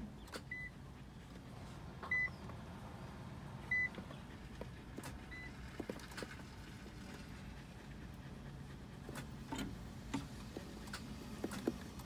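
Nissan GT-R's electronic warning chime beeping three times, about a second and a half apart, then irregular sharp ticks over a steady low hum as the start button is pressed and the engine fails to start. This is the ticking no-start fault that has returned despite a replaced starter motor.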